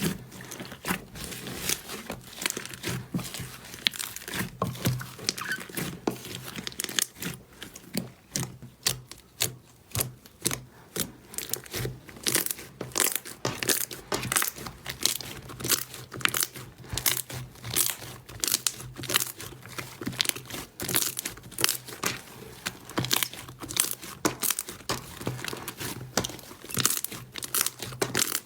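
Slime being squeezed and worked by hand, giving a dense, irregular run of sticky crackling and snapping clicks.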